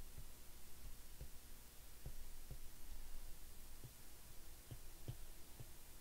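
Faint, soft taps of a stylus on a tablet screen at irregular intervals as numbers are handwritten, over a low steady hum.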